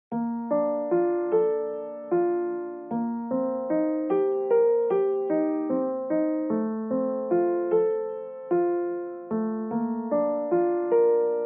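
Background music: a slow, gentle piano melody of single struck notes, each ringing and fading, about two or three a second.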